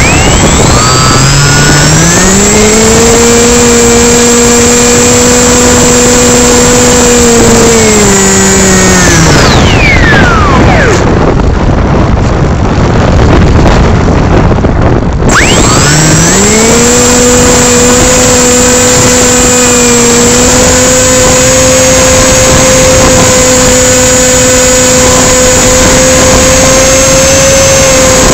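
RC plane's motor and propeller heard from on board: a loud whine that spools up near the start and holds steady, winds down about eight seconds in as the throttle is cut, leaving only wind rush over the microphone, then spools back up at about fifteen seconds and holds steady.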